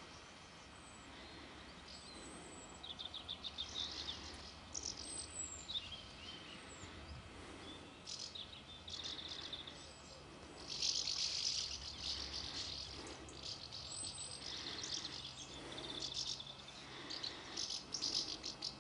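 A flock of house martins calling in flight overhead: bursts of high, rapid twittering chirps that come and go, densest and loudest about eleven seconds in.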